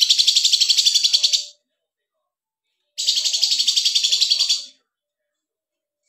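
A caged songbird gives two loud, rapid, evenly pulsed high trills, each about two seconds long. The first fades out about a second and a half in, and the second starts about three seconds in.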